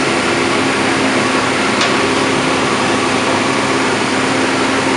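Construction machinery running steadily: a constant engine drone with a steady hum and no change in pitch or level.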